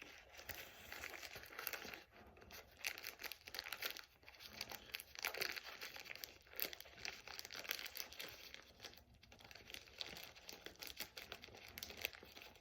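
A mailed package being worked open by hand: irregular crinkling, rustling and tearing of its wrapping as it resists opening.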